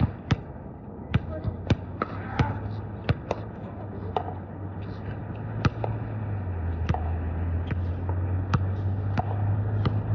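Basketball bouncing on a hard court: sharp, irregular bounces about once or twice a second. Under them is a low steady hum that slowly grows louder.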